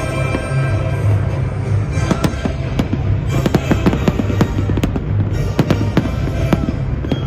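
Fireworks bursting and crackling in quick succession over music from a sound system.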